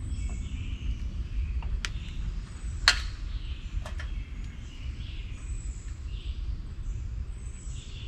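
Birds chirping over a steady low rumble, with three sharp clicks about two, three and four seconds in, the middle one loudest, from hands working the tie straps and motor cable at an e-bike's rear hub.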